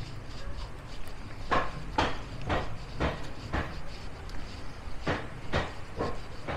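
Footsteps on brick paving, about two steps a second, starting about one and a half seconds in, with a short pause near the middle.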